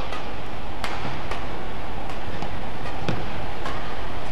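Steady arena ambience of an indoor badminton hall, an even hubbub from the crowd and the hall, broken by a few sharp taps.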